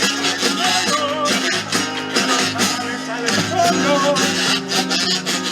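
Chirigota carnival group playing an instrumental passage: strummed guitars with regular drum beats and a wavering melody line on top.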